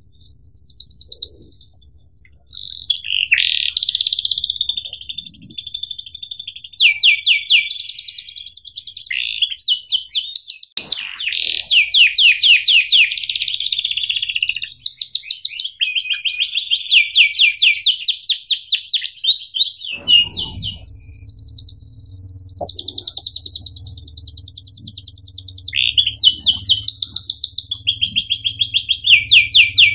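Domestic canary singing: long, high-pitched phrases of fast rolling trills of rapidly repeated notes mixed with chirps, broken by brief pauses.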